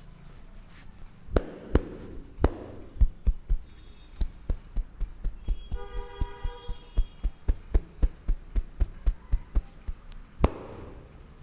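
Percussive hand strikes of a head massage: a few loud single slaps, then an even run of taps at about three a second, ending in one more loud slap.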